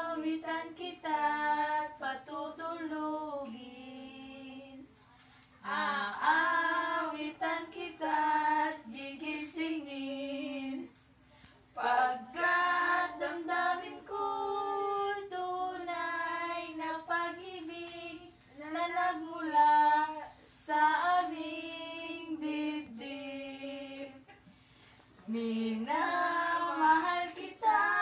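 A small group of female voices singing a birthday serenade unaccompanied, in phrases broken by short pauses for breath.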